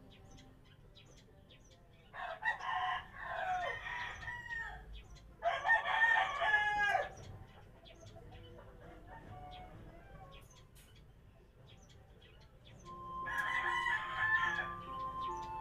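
Roosters crowing three times, each crow about two seconds long and dropping in pitch at its end.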